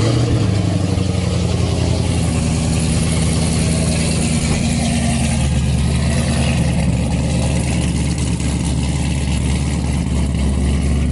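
Car V8 engine at a fast cold idle just after a cold start, running steadily with a deep, even exhaust note.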